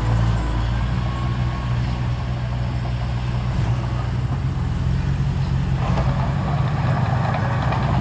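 Heavy diesel engine of a dump truck or bulldozer running steadily at low revs, with a higher, rougher sound joining about six seconds in.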